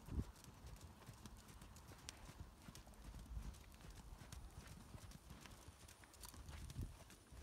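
Faint, regular hoofbeats of a horse trotting on a sand arena.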